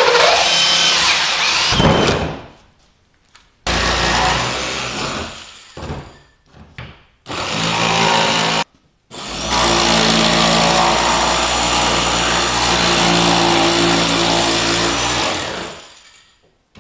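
Power tool cutting 3/8-inch plywood, in four runs with pauses between them, the last and longest about seven seconds.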